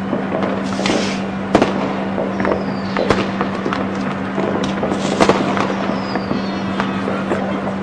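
Fireworks display with repeated bangs and crackling bursts, and a short falling whistle every three seconds or so, over a steady low hum.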